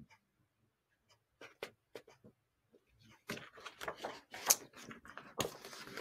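Paper pages of a picture book rustling and crackling as a page is turned, after a few faint taps from handling the book.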